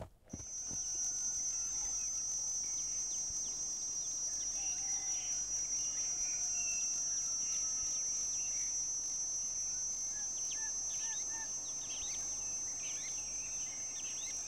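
Crickets trilling in one steady, high-pitched, unbroken chorus that comes in a moment after the start, with scattered short faint chirps over it.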